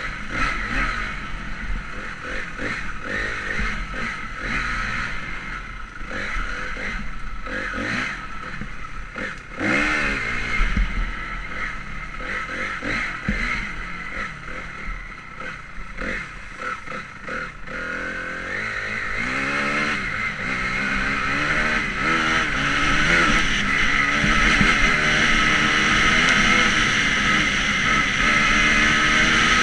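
Honda CRF250R's single-cylinder four-stroke engine revving up and down in short bursts, with scattered knocks and clatter. About two-thirds of the way in it settles into a steadier, louder pull, its pitch climbing slowly.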